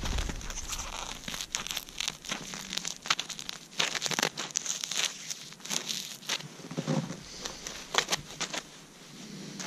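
Frozen, frost-stiffened insulated gloves crinkling and crackling as they are squeezed and flexed close to the microphone, in irregular sharp crackles.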